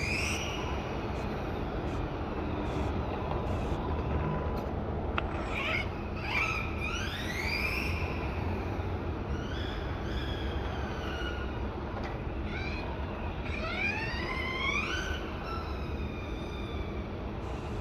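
Brushless electric motor of a modified 1/14-scale RC car whining, rising and falling in pitch several times as the car speeds up and slows, over a steady rushing noise.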